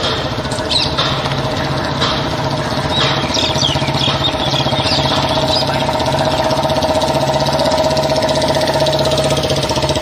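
Royal Enfield Bullet motorcycles running, a steady low engine beat that grows slightly louder in the second half.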